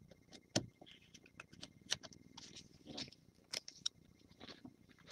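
Faint, irregular clicks and light scrapes of trading cards and clear plastic card holders being handled.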